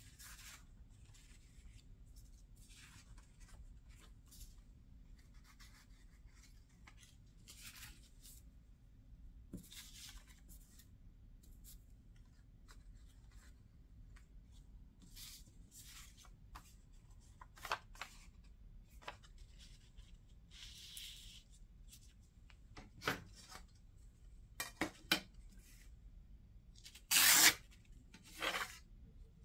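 Loose paper scraps and old book pages being handled on a table: faint intermittent rustling and sliding of paper. A few light knocks come after about 23 seconds, and a brief louder burst about 27 seconds in.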